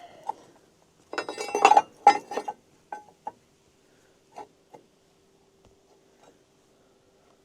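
Metal clinking and clattering as steel pieces or tools are handled, a dense run lasting about a second and a half near the start, then a few scattered clicks. A faint steady hum runs underneath.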